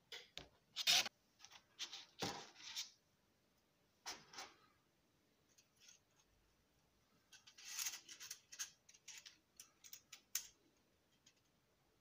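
3D-printed PLA paddle-wheel parts handled and fitted together by hand: hard plastic clicking, scraping and rubbing in irregular bursts, loudest about a second in.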